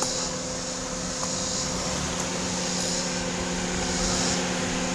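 A vehicle engine running steadily with a low, even hum. A high hiss swells and fades about every second and a half over it.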